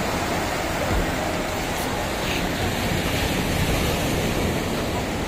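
Small sea waves breaking and washing up a sandy beach, a steady rush of surf.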